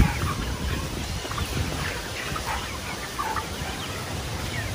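A flock of Dominant 109 F1 chickens giving many short, scattered clucks and chirps as they crowd around feed being poured out of a bucket, over a steady low rumbling noise.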